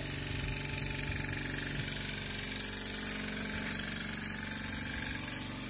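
Compressed-air spray gun hissing steadily as it sprays a coating onto the wall, with a small portable air compressor running underneath as a steady hum.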